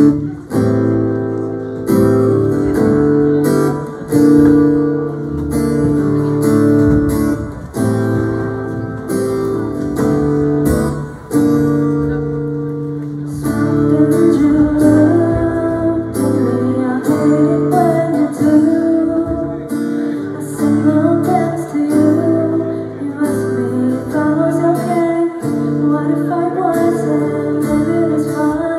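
Small live band playing: acoustic guitar strumming chords about every two seconds with electric guitars, bass, keyboards and drum cymbals, and a female vocal line coming in about halfway through.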